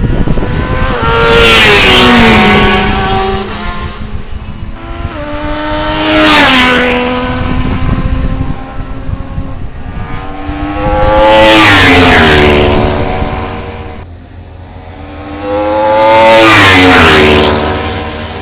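Track-day motorcycles passing at speed, four separate bikes each roaring in and away, the engine note dropping in pitch as each one goes by.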